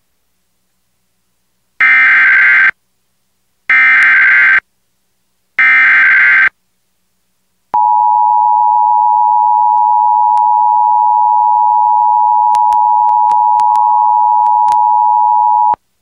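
Emergency Alert System SAME header: three identical bursts of warbling digital data tones, each about a second long and a second apart. About a second later comes the EAS two-tone attention signal (853 and 960 Hz), held steady for about eight seconds with a few faint clicks near the end. Together they open a severe thunderstorm warning broadcast.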